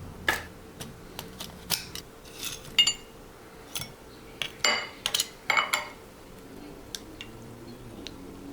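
Dishes and metal utensils clinking and knocking against each other in a series of irregular taps and clinks, a few ringing briefly. The loudest come about three seconds in and again between about four and a half and six seconds.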